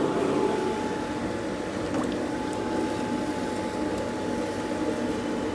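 Hot 5160 steel platen soaking in a canola-oil quench tank, the oil bubbling and sizzling steadily around it, with a faint click about two seconds in.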